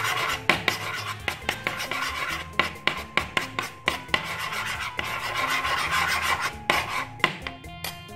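A utensil stirring and scraping white foam and pink dish soap against a wooden tabletop: a scratchy, rasping mixing sound with many sharp clicks, starting abruptly and running over quieter guitar music.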